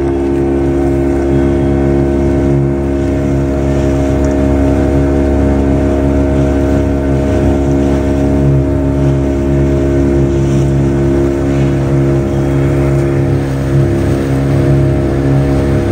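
A 9.9-horsepower outboard motor driving a small boat at a steady cruising speed: an even, unbroken drone.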